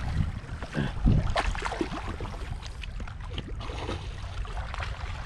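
A hooked fish splashing and thrashing at the water's surface as it is reeled in toward the rocks, with water lapping over a steady low rumble.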